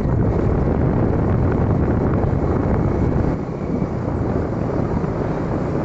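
Wind buffeting the microphone on a moving motorcycle, a dense, steady low rumble with vehicle noise underneath.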